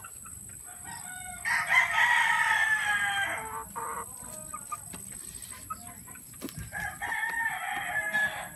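Gamefowl rooster crowing twice: a long loud crow with a falling end about a second and a half in, then a quieter crow near the end.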